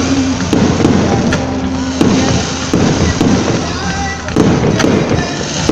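Fireworks display: a string of sharp bangs from shell bursts and launches, coming irregularly about once a second, over a steady crackle and rumble.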